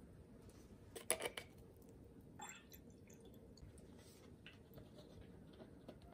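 Sparkling water poured from a plastic bottle into a glass of drinking vinegar, a faint pour and fizz. A short cluster of sharp clicks about a second in, as the bottle is handled.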